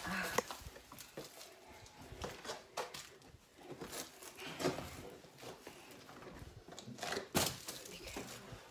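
Irregular scuffs, scrapes and sharp knocks of people clambering over rock, with shoes on stone and rustling handling noise. The loudest knocks come just at the start and about seven seconds in.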